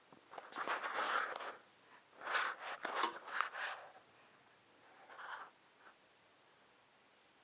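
Three short bursts of scratchy, scraping noise, the last and weakest about five seconds in.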